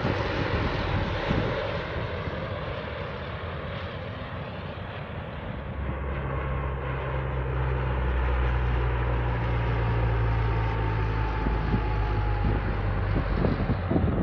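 Military transport plane flying low overhead, its engines droning steadily. The drone swells about halfway through as the plane comes close, and a high whine slowly falls in pitch as it passes.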